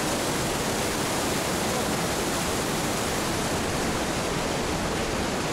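Mountain waterfall rushing, a steady even noise of falling water with no break.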